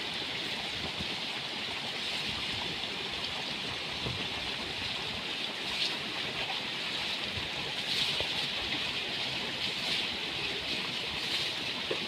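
Steady rushing of a rocky mountain river, with a few brief louder swells of water.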